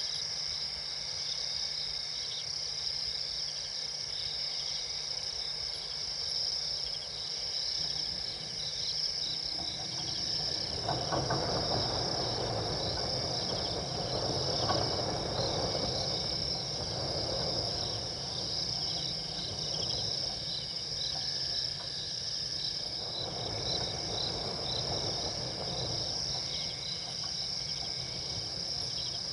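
Night insect chorus: a steady, unbroken high-pitched chirring. From about ten seconds in there is a rougher, lower rustling noise lasting several seconds, which comes back for a few seconds later on.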